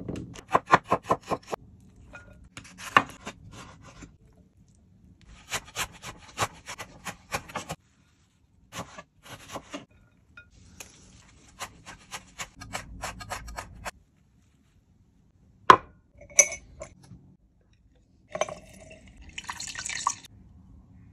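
A kitchen knife chopping vegetables on a wooden cutting board, in several quick runs of sharp strokes. Later come two single sharp clinks, then a lemon squeezer pressing juice into a glass jar.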